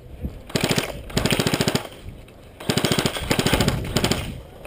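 Airsoft electric rifle, a G&G FN2000, firing three full-auto bursts as a fast, even rattle: a short burst, a longer one just after a second in, and the longest near the end.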